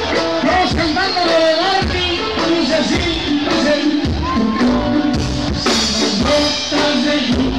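Live band playing loud dance music, with a lead singer's voice over a drum kit.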